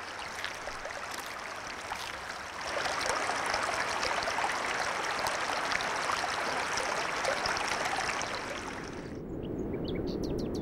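Shallow stream rushing and splashing over rocks, growing louder about two and a half seconds in and cutting off sharply about nine seconds in. After it comes a lower, duller rumble with a few faint high chirps.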